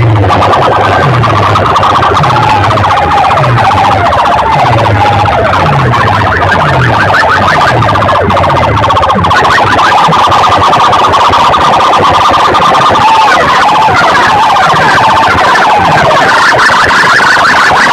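Very loud sound-system competition audio through large PA speaker boxes: many wavering, siren-like wailing tones over a repeating deep bass beat. The beat fades out a little past halfway while the wailing goes on.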